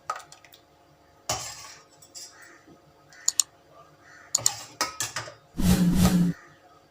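Spoon and kitchen dishes clinking and knocking in scattered taps. About five and a half seconds in comes a louder, denser clatter lasting under a second.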